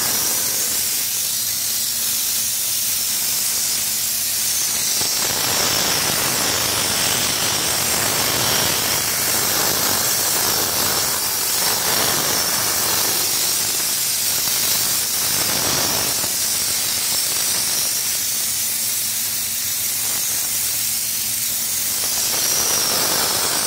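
Air-fed bed-liner spray gun spraying Raptor liner: a continuous loud hiss of air, swelling fuller several times in the middle stretch.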